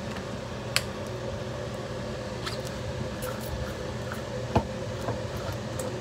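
A few light knocks and clicks as a blender cup is handled on a marble countertop, over a steady low appliance-like hum.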